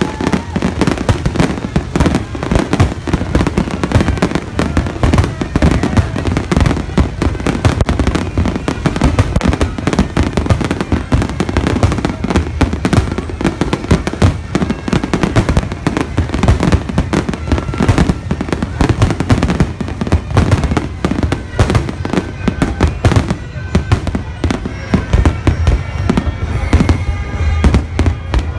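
Aerial fireworks shells bursting in a rapid, continuous barrage of booms and crackle, thinning out a little near the end.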